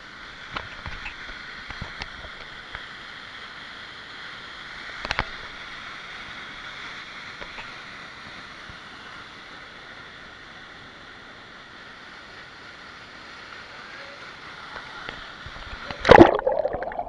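Steady rush of flowing water, with a few scattered knocks, a sharper one about five seconds in, and a loud knock near the end.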